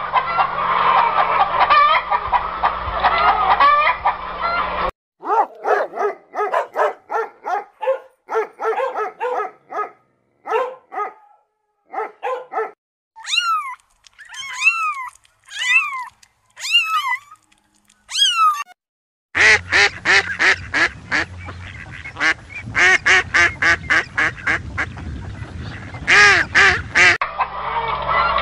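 Farm fowl calling in a string of short clips: a noisy flock, then a series of short quacking calls, then a handful of higher calls that each fall in pitch, then a noisy flock again.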